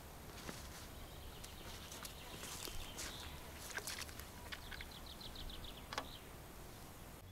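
Faint handling noise from a fishing landing net being unfolded and handled: scattered light clicks and knocks, with a quick run of about ten soft ticks around the middle and a sharper click about six seconds in, over a low steady rumble.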